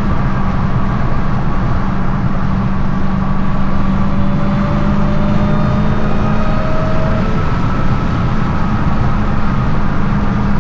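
Dodge Challenger SRT Hellcat's supercharged 6.2-litre Hemi V8 exhaust, with its active exhaust valves deleted, running steadily at an even cruise. A faint rising whine comes in about halfway through and fades out.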